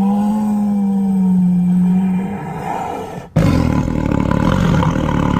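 Tiger roaring: one long held roar, then after a sudden break a little over three seconds in, a second, rougher roar.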